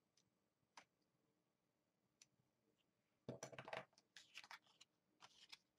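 Faint handling of paper and scissors on a cutting mat: a few light clicks, then short bursts of paper rustling and scissor handling from about three and a half seconds in.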